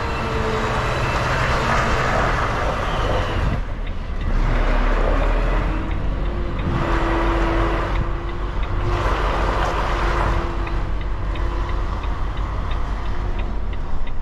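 Volvo truck's diesel engine running at low revs while the lorry reverses slowly, heard inside the cab: a steady low rumble with engine noise swelling and easing every couple of seconds.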